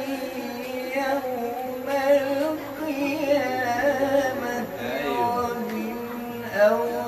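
A man reciting the Quran in melodic tarannum style, holding long, wavering, ornamented notes.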